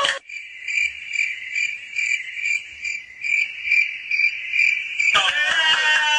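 Cricket chirping sound effect: a high, even chirp about twice a second that starts and cuts off abruptly, the stock gag for an awkward silence. About a second before the end, a loud voice and laughter break in.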